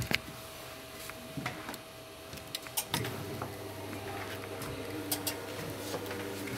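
Several sharp clicks of buttons being pressed on a Crestron MPC-M25 wall control panel. About three seconds in, a steady low machine hum starts and runs on.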